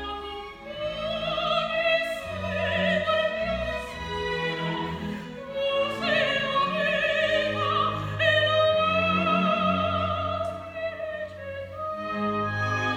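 Operatic soprano singing long held notes with a wide vibrato, accompanied by a string chamber orchestra.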